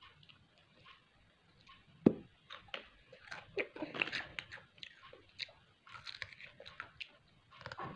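A child chewing crunchy snack chips, with irregular crunches and one sharp loud snap about two seconds in, then crunching bites of a raw carrot near the end.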